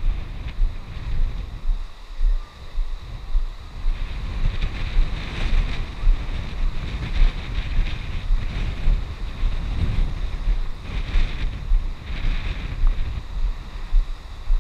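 Wind buffeting the microphone with a heavy, gusty rumble, over the wash of waves breaking on a rocky shore.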